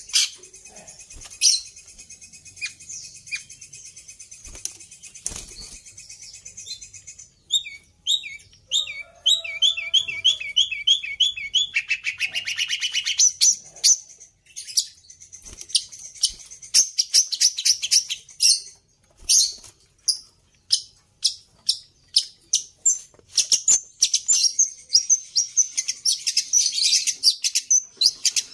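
Caged long-tailed shrike (pentet) singing a varied song of mimicked calls, with the sirtu's song among them. It gives sharp high chirps, a rapid trill and a fast buzzy run, then a quick string of loud chirps through the second half.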